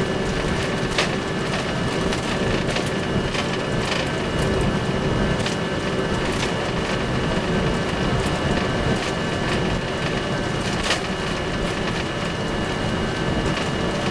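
Boeing 747 flight deck noise with the engines running: a steady rumble and hiss with a faint high whine, and light rattles and knocks now and then as the aircraft rolls slowly on the runway.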